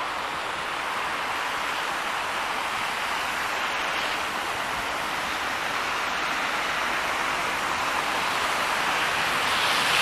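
Steady hiss of passing road traffic, car tyres on a slushy, snow-covered road, slowly growing louder toward the end.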